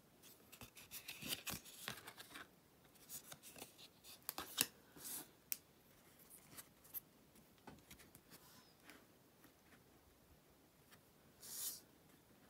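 Trading card pack being opened and the cards handled: faint crinkling of the wrapper and cards rubbing and clicking against each other, busiest in the first few seconds, with a short rustle near the end.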